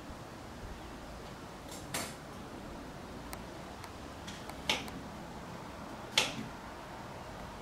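Three sharp clicks, about two seconds in, near five seconds and about six seconds in, the last the loudest, over a faint steady hiss.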